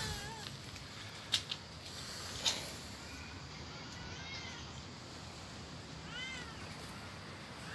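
A domestic cat meowing in short cries whose pitch rises and falls, a few around three to four and a half seconds in and another about six seconds in, with a few sharp clicks shortly before. The cries come just after another cat has gone after it, as the distress of a harassed Snowshoe cat.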